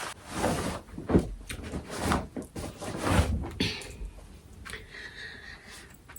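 Fabric rustling and soft bumps as a too-tight garment is tugged on, with stronger thumps about one and three seconds in.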